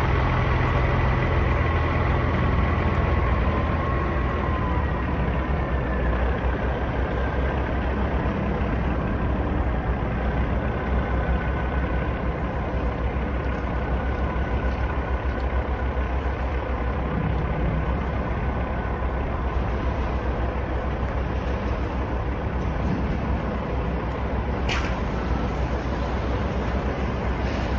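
Semi-truck diesel engine running at low revs, a steady low sound with a faint whine that slides lower in pitch during the first few seconds. A brief sharp sound near the end.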